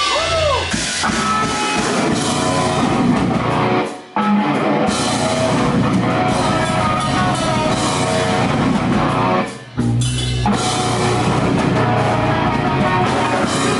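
Live rock band playing loudly: electric guitar and drum kit. The band stops briefly twice, about four and ten seconds in, then comes back in.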